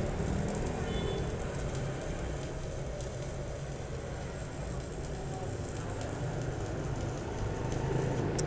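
Stick (MMA) welding arc crackling and sizzling steadily from a Kenmax inverter welder set to 100 A, running a continuous bead on thin box-section steel.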